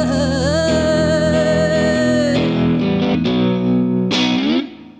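Semi-hollow electric guitar playing an instrumental phrase: one long held note, bent and wavering, over sustained low notes. A few shorter notes and an upward slide follow, then the sound drops away just before the end.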